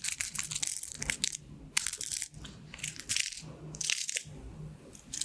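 Pins of a pin art toy sliding and clattering against each other in short rattling bursts, about one burst a second.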